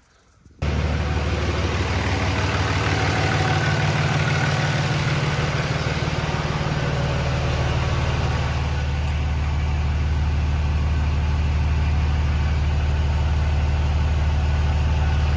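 Third-gen 5.9 Cummins turbo-diesel engine running steadily, the sound cutting in suddenly about half a second in.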